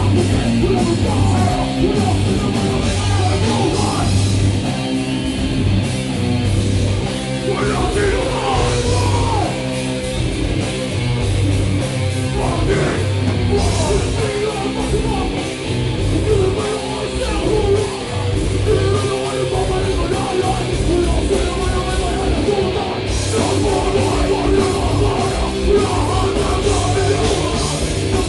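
Hardcore/metal band playing live and loud: distorted guitar and bass, pounding drums and shouted vocals.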